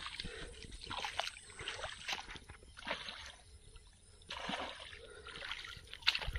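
Water splashing and sloshing in uneven bursts.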